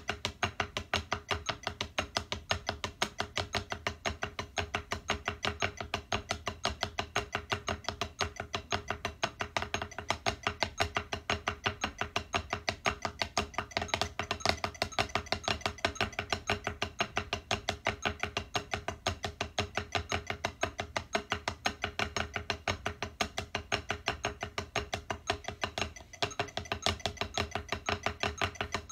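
Wooden drumsticks playing a rapid, even stream of strokes on a rubber drum practice pad, with a brief break about 26 seconds in.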